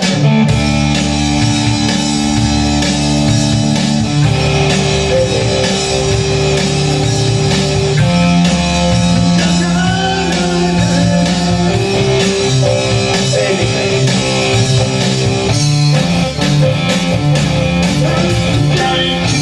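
Instrumental rock music: electric guitar with drum kit, sustained chords changing every few seconds.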